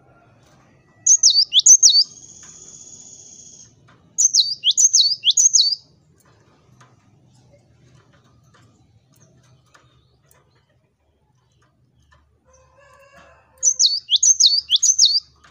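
Cinereous tit (gelatik batu) calling: three short bursts of rapid, sharp, high down-slurred notes, about a second long each, near the start, about four seconds in, and near the end. A steady buzzing note follows the first burst for about a second and a half.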